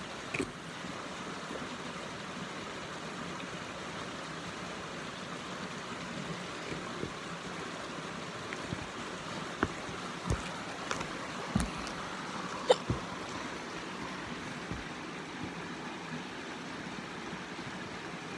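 Creek water running steadily, with a scattering of short knocks and clicks, most of them between about nine and thirteen seconds in.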